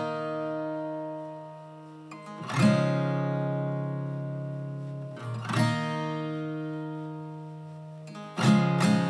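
Background music: acoustic guitar chords struck every two to three seconds and left to ring out, breaking into quicker strumming near the end.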